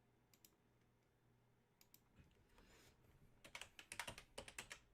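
Typing on a computer keyboard: a few isolated key clicks, then a quick run of keystrokes from about three and a half seconds in.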